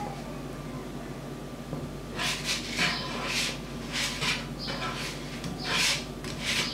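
Spatula scraping across a non-stick frying pan in several short bursts as it is worked under a baghrir to lift it, over a steady low hum.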